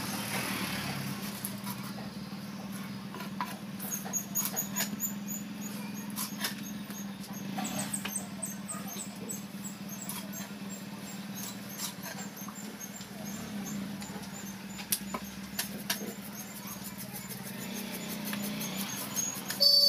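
Knife scraping the scales off a panna fish on a wet wooden chopping block: a run of short, uneven scrapes and knocks over a steady low hum.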